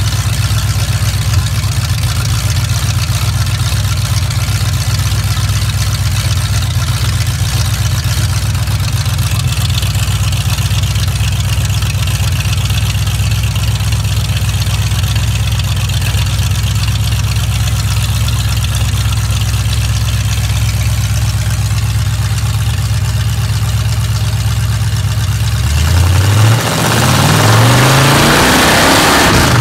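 Ford 302 small-block V8 boat engine idling steadily through open chrome headers, then revved up twice near the end.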